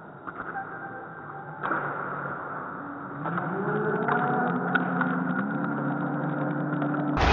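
Futsal match echoing in a sports hall: a sharp thud of the ball being struck about a second and a half in, then players and onlookers shouting from about three seconds in, with scattered knocks of ball and feet on the wooden court.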